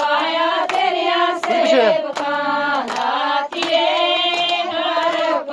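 Several voices singing a devotional song together, with rhythmic hand clapping about once every three-quarters of a second.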